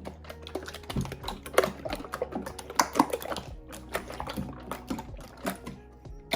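Hands squeezing and poking bath slime, making rapid, irregular sticky clicks and pops.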